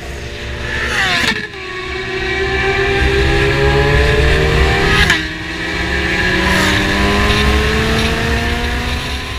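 Sport bike engine accelerating hard under load, its pitch climbing through the revs. The pitch drops sharply twice, about a second in and about five seconds in, as the rider shifts up a gear, then climbs again.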